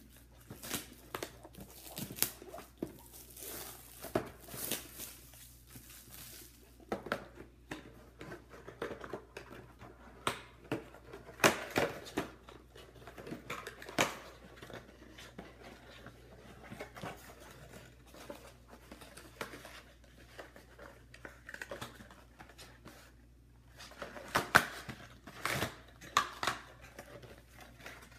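Plastic shrink wrap being torn and crinkled off a cardboard trading-card box, and the box being opened by hand. Irregular rustling, tearing and sharp crackles, loudest about 12 seconds in and again near the end.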